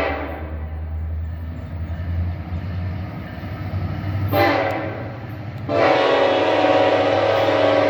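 Diesel freight locomotive air horn: a long blast cutting off at the start, a short blast about four seconds in, then another long blast near the end, the closing part of the long-long-short-long grade-crossing signal. The locomotive's engine rumbles low underneath.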